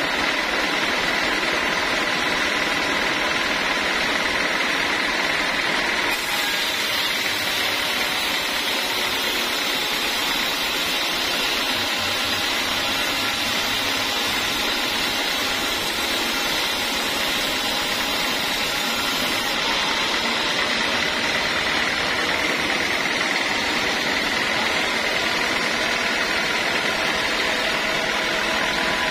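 Sawmill band saw running and cutting through a teak log: a steady high whine over a dense hiss, getting brighter about six seconds in and easing back a little before twenty seconds.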